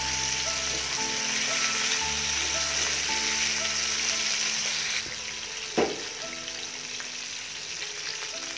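Pieces of rohu fish sizzling as they fry in hot oil in a pan, with soft background music. The sizzle drops about five seconds in, and a single knock follows shortly after.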